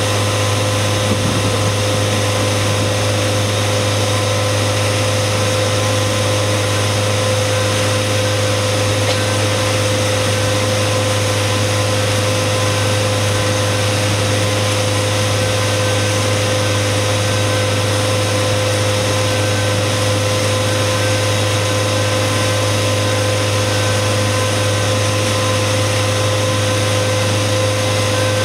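Outboard motor running steadily at speed, an unbroken engine drone, over the rush of the boat's churning wake.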